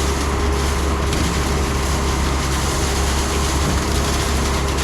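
Concrete agitator truck running steadily, its diesel engine held at a constant speed with a deep low hum while it discharges its load for the pour.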